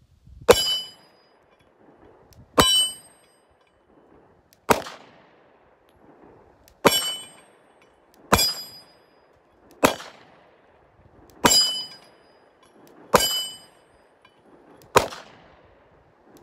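Slow pistol fire from handguns, a 9 mm Glock 48 among them: nine single shots, about one every one and a half to two seconds. Most shots are followed by a short metallic ring.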